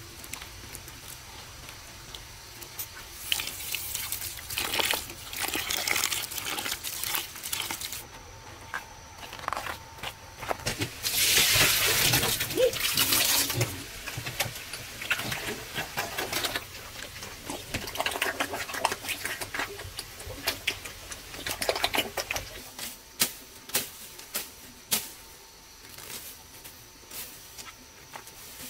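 Wet pig-feed mash squelched and splashed by hand in a metal basin, then poured from the basin into a concrete feeding trough in one loud wet rush, followed by scattered knocks and splashes.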